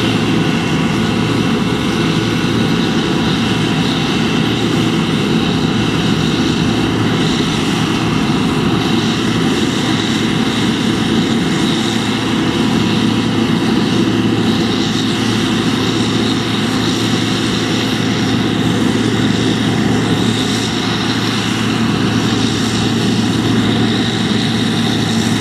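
John Deere 2264 combine harvester running steadily while harvesting barley, a loud, even engine-and-machinery drone with no change in pitch.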